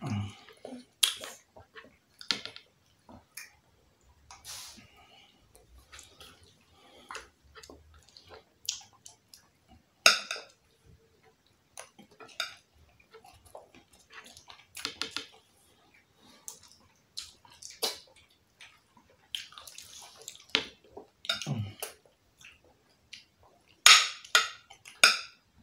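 Close-miked eating sounds: wet chewing and lip smacking on jollof rice, made up of many short clicks, with a metal spoon clinking and scraping against a glass dish.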